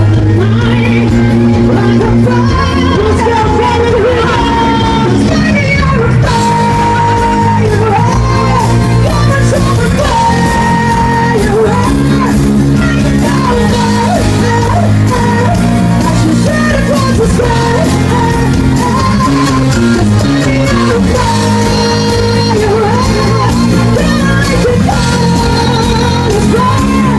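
A song performed with singing over instrumental accompaniment, a sung melody line running over sustained chords at a steady, loud level.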